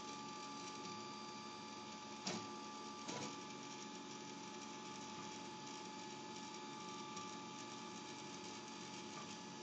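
3D printer's stepper motors running steadily as the printer prints, with a steady whine over a faint mechanical hum. Two short clicks come about two and three seconds in.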